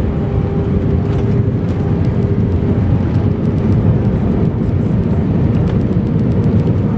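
Airbus A320 cabin noise during the landing: a steady, loud rumble of the engines and rushing air, with a faint held hum on top.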